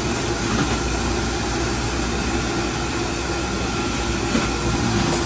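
Steady machine noise with a low hum running under it.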